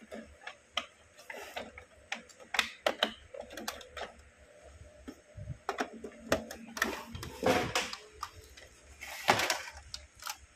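Scattered irregular clicks and knocks from hands handling the plastic case of an open Epson L220 inkjet printer.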